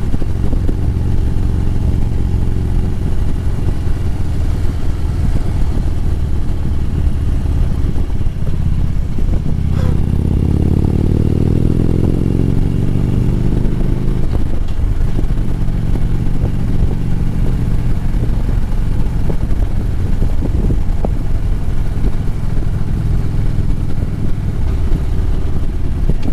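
Harley-Davidson Road Glide's V-twin engine running steadily while riding. About ten seconds in, its pitch climbs for a few seconds as it accelerates, then settles back into a steady run.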